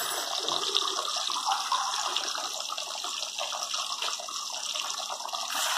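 Sweet potato pieces deep-frying in hot oil with water just added, sizzling and crackling steadily with many fine pops as the water boils off in the oil. The sizzle grows louder near the end.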